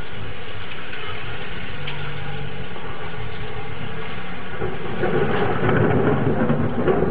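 Steady rain in a thunderstorm, with a louder, rougher roll of thunder building from about five seconds in.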